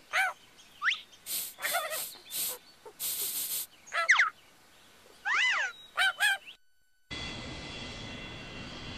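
A cartoon bird's chirps and squawks, short whistles gliding up and down, mixed with several brief bursts of hiss. After a short silence near the end, a steady hum with a high whine comes in, like a jet airliner's engines.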